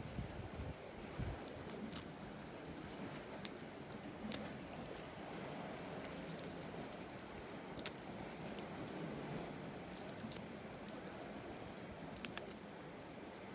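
Metal tongs working among gooseneck barnacles on a rock, giving scattered sharp clicks and scrapes against the shells over a steady low background hiss.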